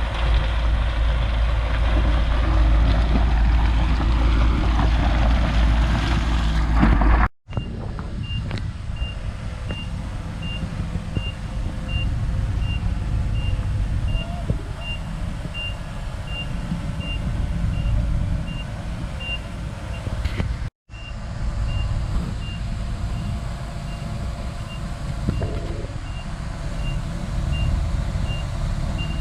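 Diesel engine of heavy construction machinery running loudly. After a sudden cut a quieter engine runs under a reversing alarm beeping steadily, nearly twice a second. The beeping stops at another cut and returns just at the end.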